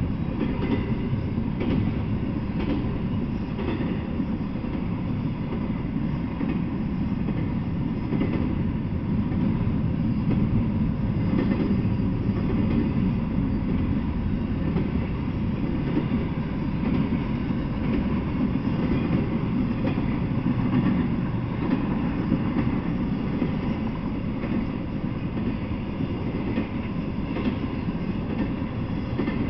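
Intermodal freight train's cars rolling past: a steady low rumble of steel wheels on the rails, with occasional faint clicks.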